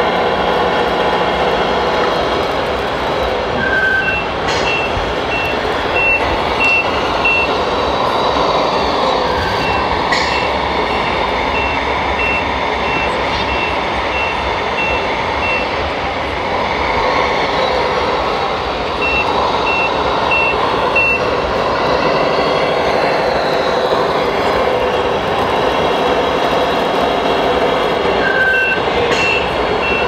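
Engine sound of a radio-controlled Mercedes-Benz truck hauling a loaded tipper trailer, with an electronic reversing beeper sounding in several runs of beeps about two a second.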